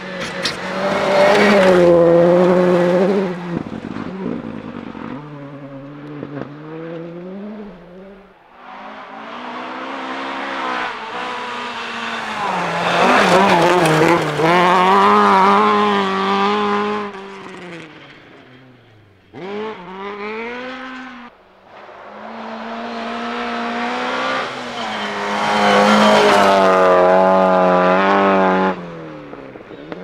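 Rally cars at full throttle on a gravel stage, passing one after another, engines revving hard and dropping back through gear changes; a Mk2 Ford Escort rally car makes the loudest pass about halfway through. There are three loud passes in all plus a short burst of revving near the two-thirds mark, and the last one cuts off abruptly near the end.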